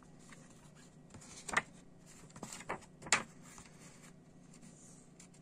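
A paper CD booklet being opened and its pages turned by hand: rustling, with two sharper page flaps about a second and a half and three seconds in, over a low steady hum.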